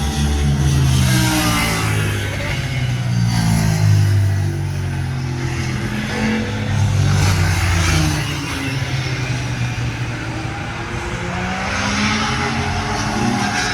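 Classic Honda sports and racing motorcycles passing one after another on a race track, their engines revving up and dropping away. The engines overlap, with loudness peaking every few seconds as bikes go by.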